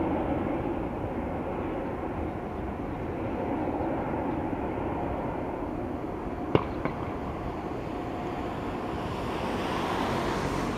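Jet engine noise of a Boeing 777-200 climbing away after takeoff: a steady roar that fades over the first couple of seconds and then holds, swelling slightly near the end. A sharp click sounds about six and a half seconds in.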